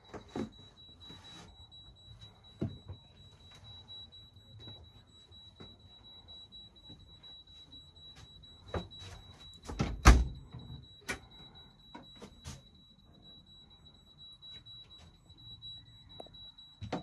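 A steady high-pitched electronic tone, with scattered light clicks and knocks and one heavier thump about ten seconds in.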